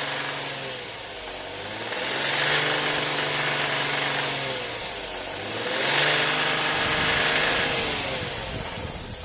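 Toyota 1G-FE BEAMS straight-six engine held at raised revs in three spells. The revs sag between spells and fall back near the end. The owner reports a knock that sets in at about 2000 rpm and does not know its cause.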